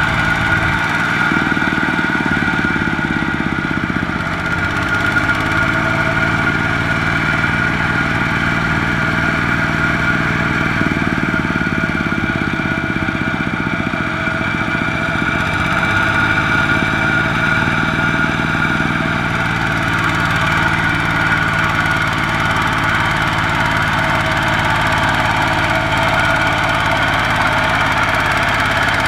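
Single-cylinder diesel engine of a two-wheel walking tractor (power tiller) running steadily under load as it drags a loaded trailer through deep, sticky mud.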